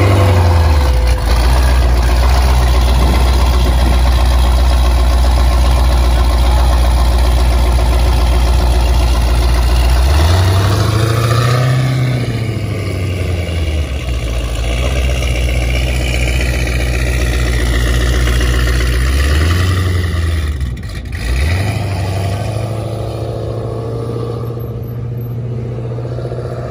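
Cammed, supercharged 6.2-litre V8 of a 1000-plus-horsepower Jeep Grand Cherokee Trackhawk running loudly at idle, revved up and back down about ten seconds in and briefly again near twenty seconds in.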